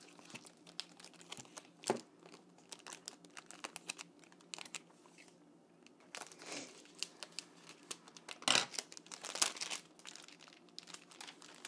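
Clear plastic shrink wrap crinkling and crackling as it is cut with scissors and peeled off a hardcover planner. The crinkles come irregularly and are loudest in a few bursts late on.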